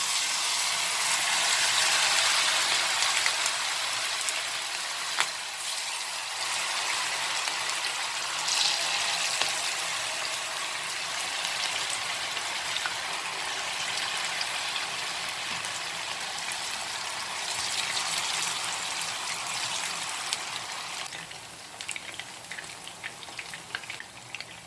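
Marinated chicken pieces sizzling in hot oil as they deep-fry, a loud steady hiss that starts as they go in and eases off about three-quarters of the way through.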